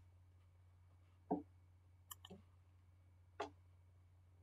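A few separate clicks of a computer mouse, two of them louder than the rest, over a faint steady low hum.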